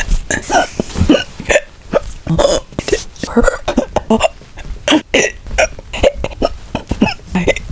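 A person hiccuping over and over in quick succession, some hiccups much louder than others.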